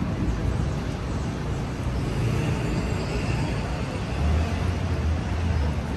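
City street traffic: a steady low engine rumble that swells about four seconds in, with a faint high whine over the middle.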